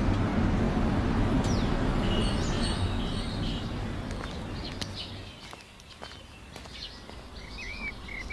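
Steady outdoor street noise, a low rumble and hiss, fading down about five seconds in. A few bird chirps near the end.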